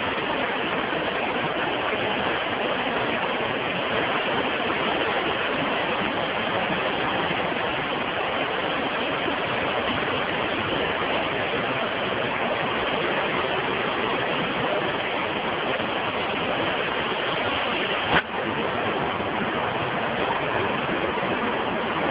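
Fast, high river rushing steadily, a constant even roar of water. A single short knock about 18 seconds in.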